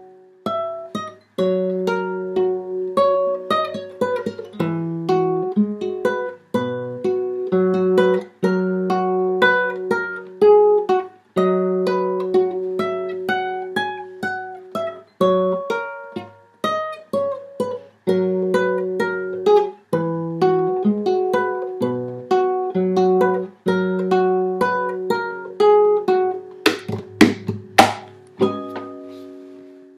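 Classical nylon-string guitar with a capo, played fingerstyle: a plucked melody in short phrases with brief pauses. Near the end, a few quick strummed chords ring out.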